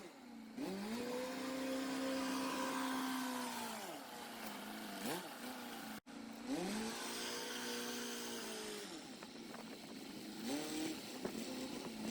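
Military wrecker truck's engine revving up, holding under load for a few seconds, then dropping back, twice, with wind hiss over it.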